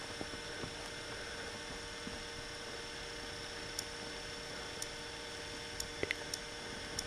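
Steady electrical mains hum, with a few faint, short ticks.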